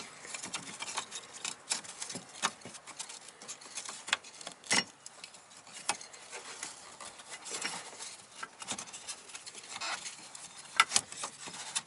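Irregular small clicks, taps and scrapes of hands working a car's fuel filter and its fuel lines back into place, with a couple of sharper knocks about five and eleven seconds in.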